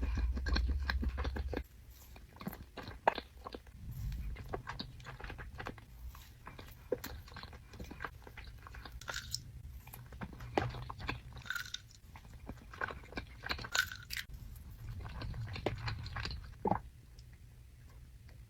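Close-up chewing of a mouthful of chocolate cake studded with chocolate chips: soft, wet mouth clicks and small crunches scattered irregularly.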